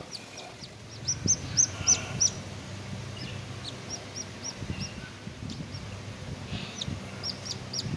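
Newly hatching chicken chick peeping from inside its broken-open egg: short high peeps in quick runs, the loudest a second or two in and again near the end.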